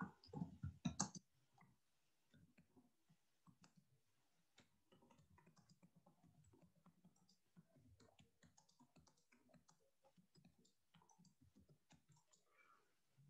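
Faint typing on a computer keyboard: a long, quick run of small key clicks. There are a few louder knocks in the first second or so.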